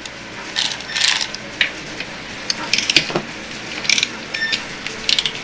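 Cordless electric ratchet running in several short bursts as it spins a bolt in. The bolt is only being snugged down here, to be torqued later.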